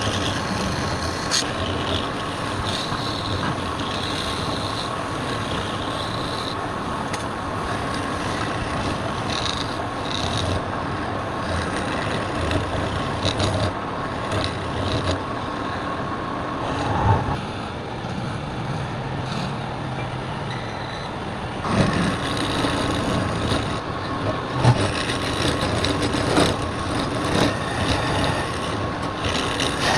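Wood lathe running steadily, with a constant whine over rough cutting noise and a few louder knocks in the second half.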